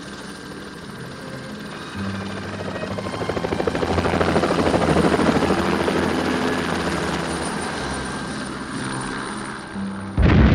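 Small helicopter lifting off and flying away. The rotor chop and engine drone come in about two seconds in, grow loudest near the middle, then slowly fade. Just before the end a sudden loud explosion breaks in as the helicopter is blown up in the air.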